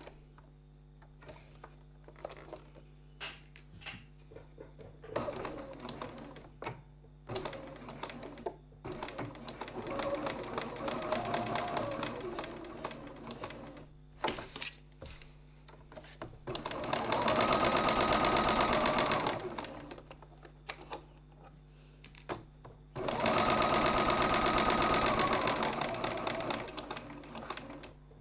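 Sewing machine stitching a seam in runs: slower, quieter stitching first, then two fast steady bursts of about three and four seconds with a steady whine, with scattered clicks from handling between runs.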